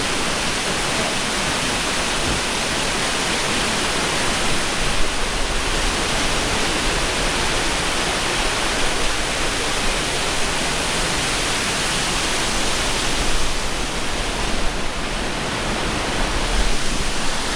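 Waterfall rushing and splashing in a steady, unbroken roar of water.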